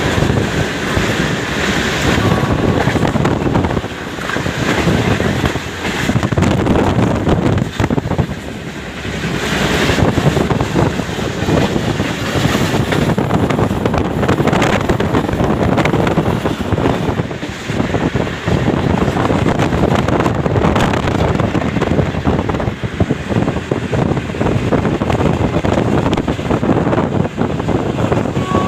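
Passenger train running, heard from on board: a loud, continuous rushing rumble with wind buffeting the microphone.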